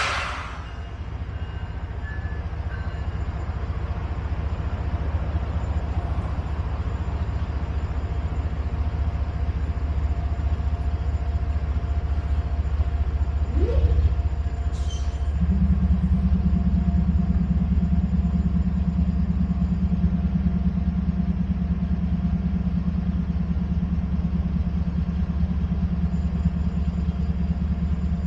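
Union Pacific diesel-electric locomotives running past, a steady low engine rumble. About halfway through the sound steps up and stays louder.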